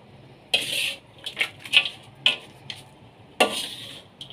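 A spoon scooping and scraping crunchy dry-fried tempeh and anchovy sambal into a container: a series of short, dry rustling scrapes with light clicks of the spoon, the loudest about half a second in and again near the end.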